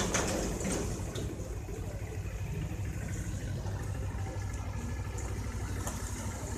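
Street traffic: the steady rumble of passing cars and motorbikes running. There is a brief knock at the very start.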